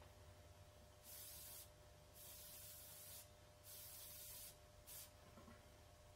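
Airbrush spraying paint in four short bursts of hiss, each under a second, the last very brief, as the trigger is pressed and released.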